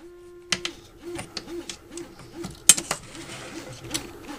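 Small metallic clicks and taps of a hex key turning the endstop's mounting bolt, then one sharp click near the middle. After that comes a short sliding rattle as the printer's heated bed is pushed along its rails. Under the first half runs a low cooing tone repeated about three times a second, which fades out.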